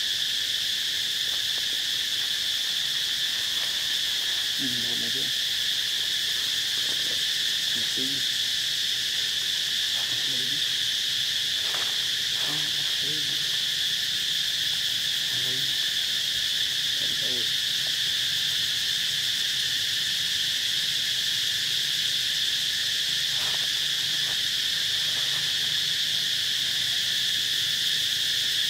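Steady, high insect drone from a woodland insect chorus. A few short, soft, low calls come and go over it now and then.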